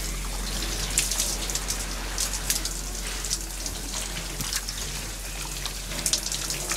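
Shower running: a steady hiss of falling water with irregular spattering as it hits the body and the tiled floor.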